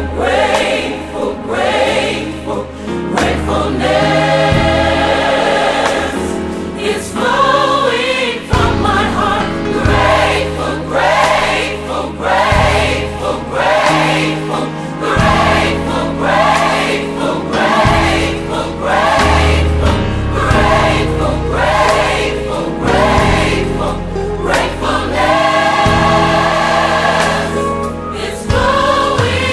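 Gospel choir singing, backed by a band with a bass line and a steady beat.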